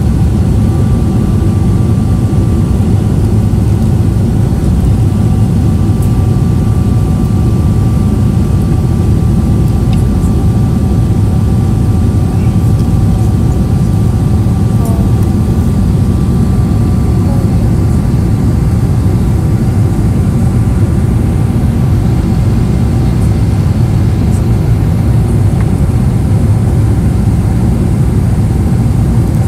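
Cabin noise of a Boeing 777-300ER climbing after takeoff: its GE90 jet engines running with a deep, even rumble and a faint steady high tone over it.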